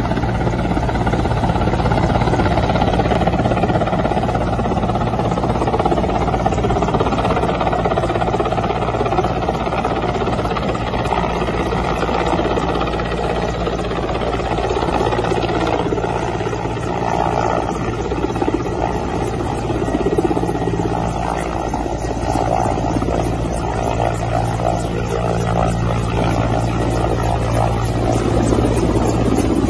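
Military transport helicopter flying in low, a steady rotor-and-turbine drone whose low rotor tones grow stronger in the second half as it comes closer.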